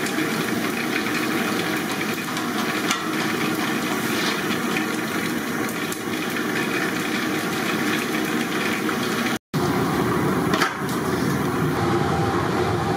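Potato sticks sizzling in hot oil in an iron kadai, with a sharp clink of the metal skimmer about three seconds in. The sound cuts out for an instant about nine and a half seconds in, and a similar steady noise carries on after it.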